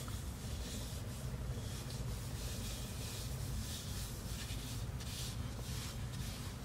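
Soft repeated scrubbing of a wet acetone towelette rubbed over the skin of the face and neck, faint above a steady low hum.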